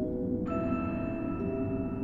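Background music: slow, sustained notes that change every second or so over a steady low bed, with a bright new note entering about half a second in.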